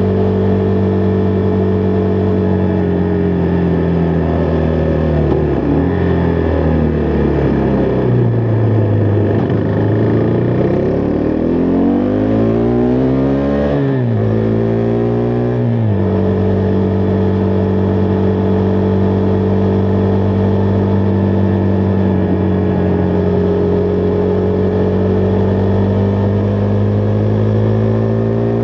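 Husqvarna Vitpilen 401's single-cylinder engine under way. The engine note falls as the bike slows a few seconds in, climbs through two quick gear changes about midway, then holds a steady cruise, with another shift near the end.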